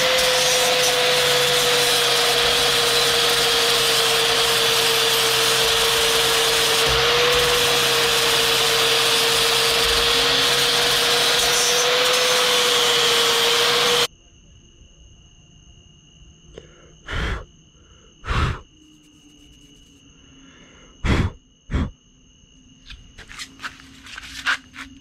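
Angle grinder with a sanding disc running with a steady whine as it sands the boat's fiberglass floor. The sound cuts off abruptly about 14 seconds in, leaving a quiet stretch with a few sharp clicks and a faint steady high tone.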